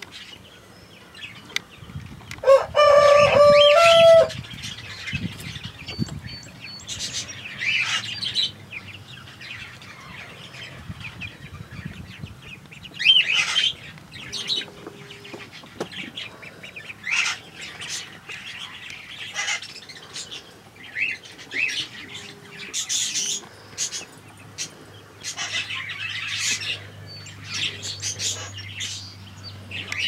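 Grey cockatiel and other birds giving short, high chirps and whistles on and off. Near the start comes one loud, drawn-out crow of about a second and a half, rising and then stepping up in pitch, like a rooster's.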